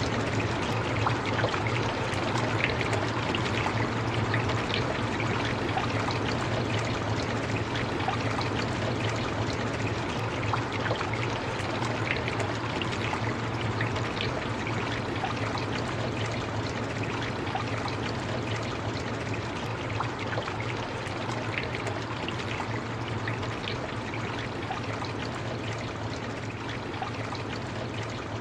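Steady rain falling, a dense even hiss with a patter of many small drops and a constant low rumble underneath.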